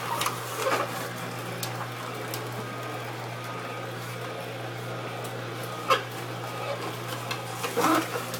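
Hurom slow juicer running with a steady low hum, its screw auger turning as apple pieces are pushed into the feed chute, with a single sharp click or crack about six seconds in.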